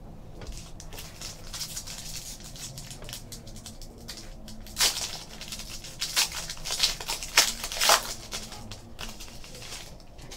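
A trading-card pack wrapper being crinkled and torn open by hand, with a run of small crackles and louder crinkles between about five and eight seconds in.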